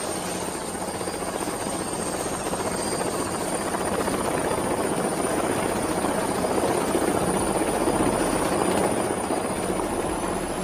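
Helicopter flying with a dense, fast rotor chop and a thin high whine that rises slightly in pitch. It grows louder for most of the stretch and then eases off near the end.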